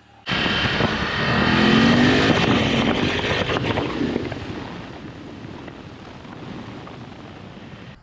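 BMW F750GS/F850GS parallel-twin engine through an Akrapovič slip-on exhaust, ridden hard: it comes in suddenly and its pitch rises as the revs climb. After about four seconds it eases off and runs on more quietly.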